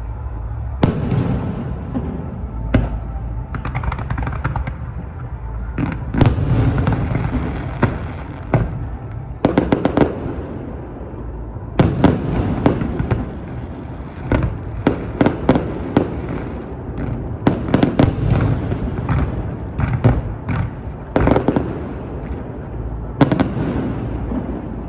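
Fireworks display: aerial shells bursting one after another with sharp bangs over a continuous low rumble. Several times the bangs come in quick clusters of four or five in about a second.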